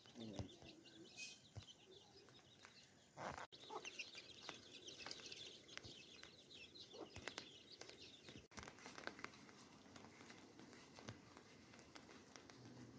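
Faint clucking of domestic chickens in short, scattered calls.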